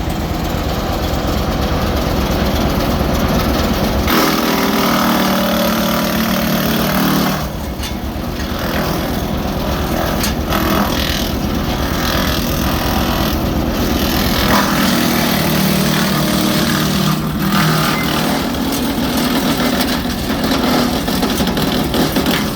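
Jinma 8-inch wood chipper running under load as a tree about 2.5 inches thick is fed through and chipped. A steady engine drone underlies it, and the sound changes about four seconds in, followed by uneven surges as the branches go through.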